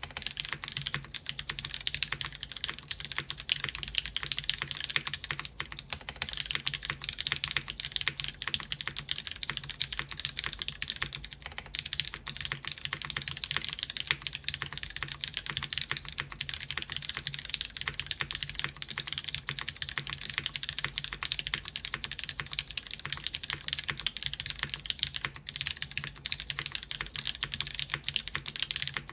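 Continuous fast typing on a mechanical keyboard with lubed Cherry MX Brown switches, an aluminium plate and GMK keycaps: a dense, steady stream of key clicks and bottom-out clacks.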